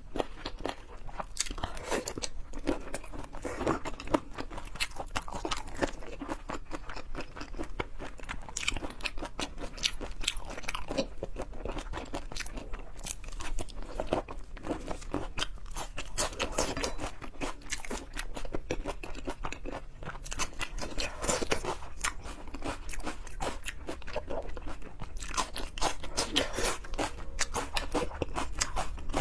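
Close-miked eating: steady, irregular crunching and chewing of food, with many quick small clicks.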